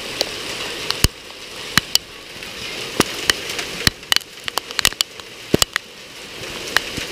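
Hail and heavy rain pelting down: a steady hiss broken by many sharp, irregular ticks of hailstones striking, thickest a little past the middle.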